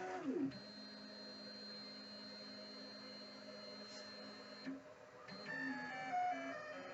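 Stepper motors of a belt-driven CNC hot-wire foam cutter whining as the axes move. The pitch glides down about half a second in, holds steady for about four seconds, breaks off briefly, then steps up and down in pitch through the last second and a half as the cutter changes direction and speed.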